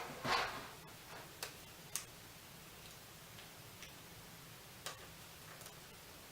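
A few faint, irregularly spaced small clicks and taps of fingers and plastic parts inside an open laptop as the battery cable connector is pressed back onto the motherboard.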